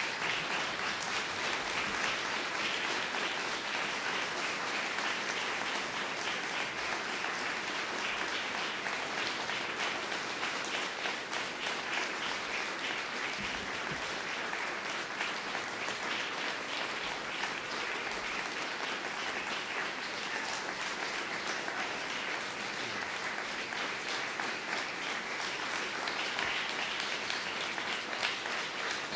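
Audience applauding: many hands clapping at an even, steady level.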